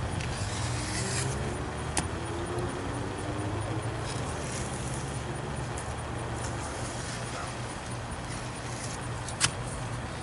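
A steady low mechanical hum with two sharp knocks, one about two seconds in and a louder one near the end.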